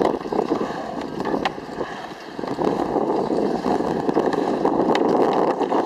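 Skateboard wheels rolling over a concrete skatepark bowl, a steady rolling noise with a few sharp clacks. It eases off about two seconds in, then grows louder again as the board picks up speed.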